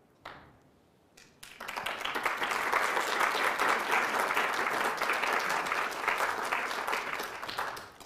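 Audience applauding: many hands clapping, starting about a second and a half in and dying away near the end.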